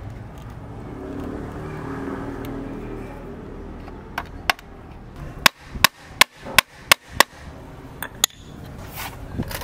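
Hammer tapping on a small wooden frame: two light taps, then a run of seven sharp strikes at a little over two a second, and two more lighter taps near the end.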